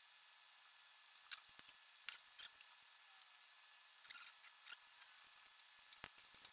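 Faint, scattered small scratches and clicks of fingers picking at and peeling a white protective sheet off the inside of a resin printer's hinged door, in short clusters with quiet gaps between.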